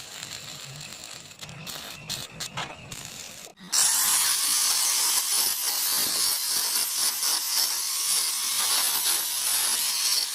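A few light clicks and knocks, then about four seconds in a power tool starts working on steel and runs steadily with a loud, high hiss.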